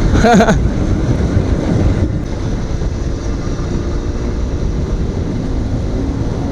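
Royal Enfield GT 650's parallel-twin engine running steadily while riding, with wind rushing over the microphone.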